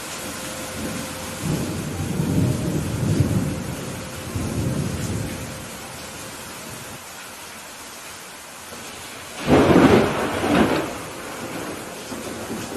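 Steady rain with thunder: a low rolling rumble through the first few seconds, then a sudden loud thunderclap about nine and a half seconds in that rumbles off over a second or so.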